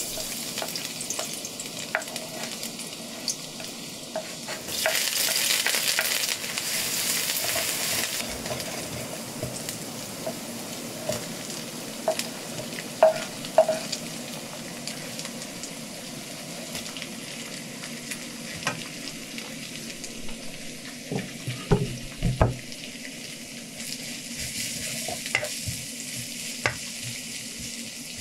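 Minced garlic, shredded green onion, red paprika and sliced shiitake sizzling in hot oil in a wok as they are stir-fried with a wooden spatula. The sizzle grows louder for a few seconds about five seconds in, and there are a few sharp knocks about halfway through and again later.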